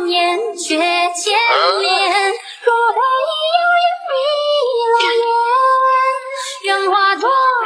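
A high-pitched voice singing a melody, with long held notes and pitch slides and short breaks between phrases.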